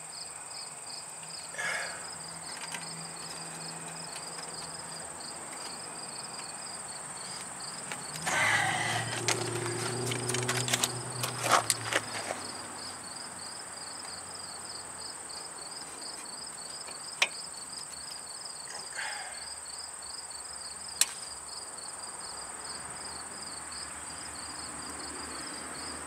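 Insects chirping steadily outdoors: a rapid, even pulsing chirp over a continuous high whine. About a third of the way in, a louder rumble with a low hum rises for a few seconds, and there are a couple of sharp clicks later on.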